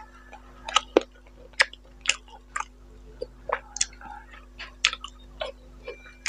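Close-miked mouth sounds of a man eating rice and boal fish curry by hand: wet chewing and lip smacks in a string of sharp clicks about twice a second, the loudest about a second in.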